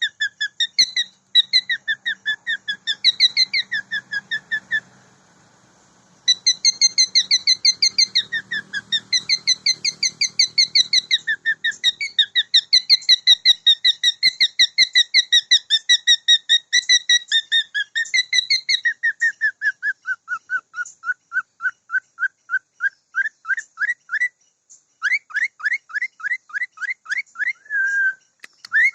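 Cockatiel singing: a long run of fast, repeated whistled notes, about four a second, with a short pause about five seconds in and another near the end. Past the two-thirds mark the notes drop to a lower pitch.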